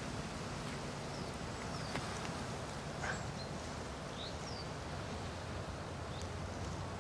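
Outdoor ambience: a steady hush with scattered short, high bird chirps and a faint low hum underneath.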